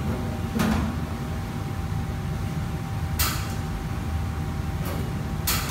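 Steady low rumble of a commercial kitchen's extraction hood over a wok stove, with a few short sharp clatters as a cook works at the stove.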